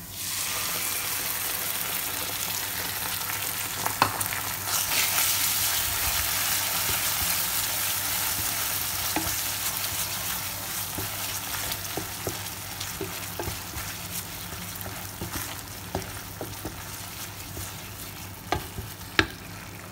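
Coconut milk poured into a hot non-stick pan of fried sambal paste, sizzling sharply as it hits and then slowly dying down as it is stirred and scraped with a wooden spatula. A few sharp taps of the spatula on the pan come about four seconds in and again near the end.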